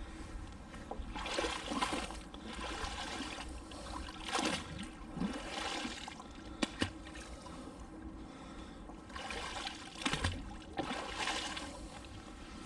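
Water splashing and trickling in short bursts as a magnet on its rope is hauled up out of canal water. Two sharp clicks come close together a little past halfway.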